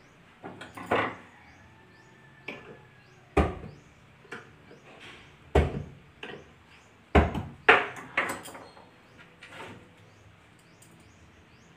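Irregular sharp knocks and clunks on wood, about half a dozen a second or more apart with lighter clatter between, the loudest pair near the end, as the plywood cabinet, its door and hinge parts are handled during concealed-hinge fitting.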